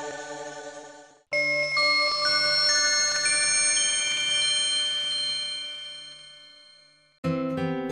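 Intro music: a sustained chord fades out, then after a brief cut a title sting of high, clear ringing notes comes in one after another and slowly dies away. Just before the end, a new piece of music with quick plucked notes begins.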